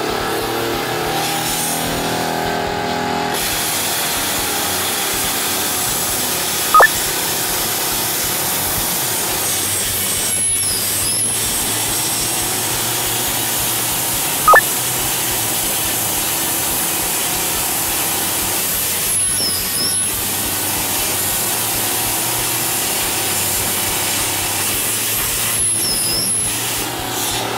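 Plasma cutter cutting metal with a steady hiss of air and arc, breaking off briefly three times, while an air compressor's motor runs alongside. Two short sharp clicks stand out as the loudest sounds.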